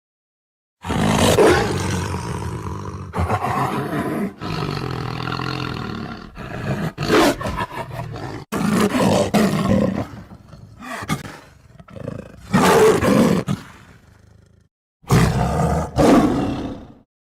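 Tiger roaring and growling in a string of separate roars, the loudest about a second in, around twelve to thirteen seconds in, and near the end. Several roars stop abruptly in dead silence, as edited sound-effect clips do.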